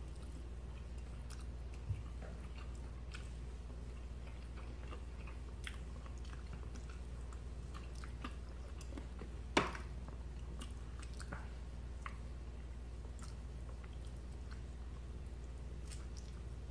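People chewing soft food (baked fish, potatoes, cheesy broccoli) close to the microphone, with light clicks of plastic forks against plates over a steady low hum. There is a sharper knock about nine and a half seconds in.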